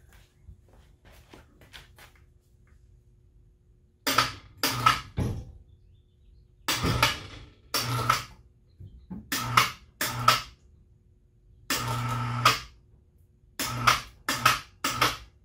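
Electric motor of a small Harbor Freight lift run in short stop-start bursts, about ten of them lasting under a second each and one longer run about two-thirds in, as it hoists a CNC mill's spindle motor. Each run is a steady mechanical hum with a hiss. Faint clicks come before the first run.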